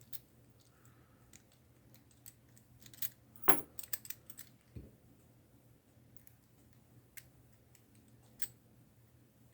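Scattered light metal clicks and rattles from handling a Brinks padlock and its picking tools, with one sharper click about three and a half seconds in.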